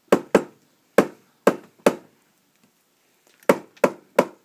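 Sharp clacks from a bench vise as it is cranked down, pressing a new front wheel hub bearing into the steering knuckle: two at the start, three more about a second in, and three close together near the end.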